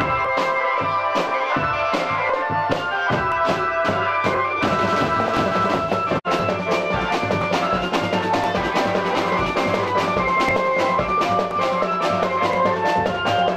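Music with drums and a steady beat, dropping out for an instant about six seconds in.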